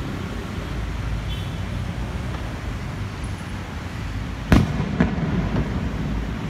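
Aerial fireworks shells bursting: a loud bang about four and a half seconds in, a second bang half a second later, then a few smaller pops. Under them runs a steady low rumble of city traffic.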